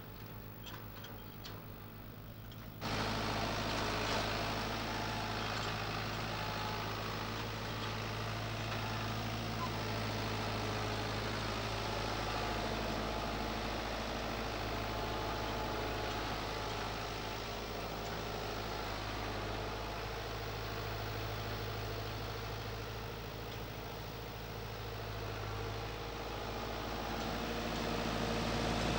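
Farm tractor diesel engine idling steadily close by, with a deep even hum. It starts suddenly about three seconds in. Before that there is only faint, regular ticking.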